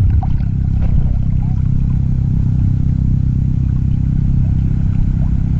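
A steady low engine drone, with a few faint short chirps over it.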